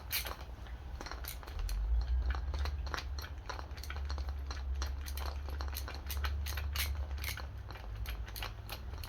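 Small metal clicks and taps of hand tools and chainsaw parts being handled during ignition coil work, coming irregularly several times a second, over a steady low hum.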